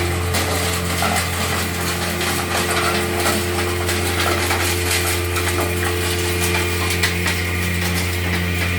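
Stone pulverizer (hammer mill) running while grinding zeolite stone: a steady low hum with a dense, continuous rattle and clicking of stone being struck and ground inside.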